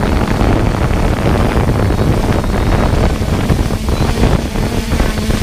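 Steady rushing wind noise on the microphone of a 3DR Solo quadcopter's onboard camera, with the drone's rotor hum beneath.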